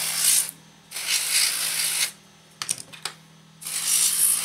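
Aerosol can of dry contact cleaner sprayed onto a RAM module's edge contacts in short hissing bursts, three of them about a second each, to clear oxide from contacts that keep making intermittent contact. A few small clicks come between the second and third bursts.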